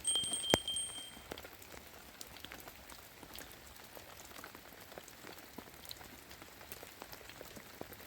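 Rain falling, with scattered drops ticking and pattering. In the first second or so a high steady tone sounds briefly together with one sharp click, which is the loudest moment.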